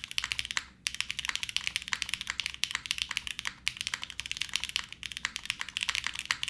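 Fast continuous typing on a Cat:( custom mechanical keyboard, an O-ring-mounted board with H1 switches and GMK keycaps: a dense run of keystroke clacks, with a brief pause just under a second in.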